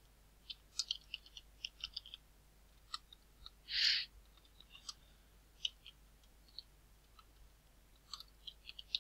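Computer keyboard being typed on: short irregular runs of key clicks, with a brief hiss about four seconds in.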